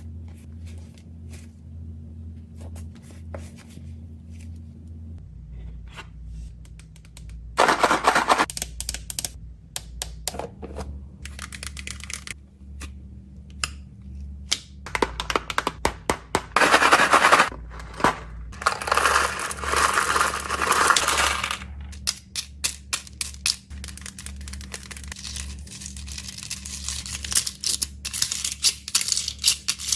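Small plastic fidget toys being handled and packed: a run of sharp clicks and taps, with louder stretches of scraping and rustling about a quarter of the way in and again from about the middle, over a low steady hum.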